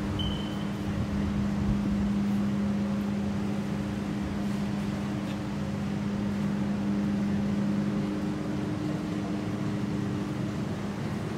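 Steady low machine hum at a constant pitch over an even rushing noise, from body-shop equipment running.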